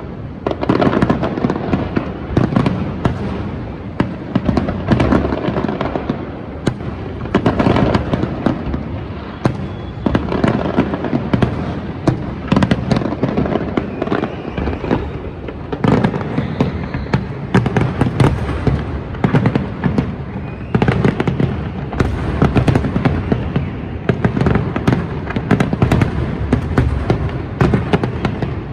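Fireworks display: a dense, continuous barrage of bangs and crackles with no pauses, the bursts coming many to the second.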